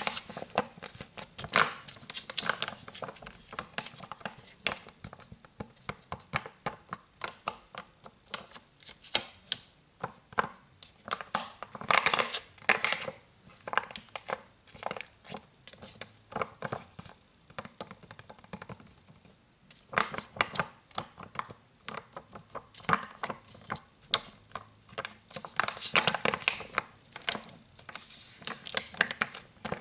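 Fingers scratching and crinkling a plastic liquid soap refill pouch: a dense run of irregular crackly scratches, with a pause of about a second roughly two-thirds of the way through.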